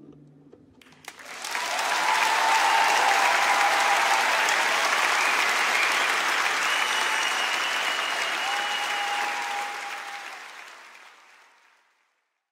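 A crowd applauding, with some cheering over it. It swells up about a second in and fades away near the end.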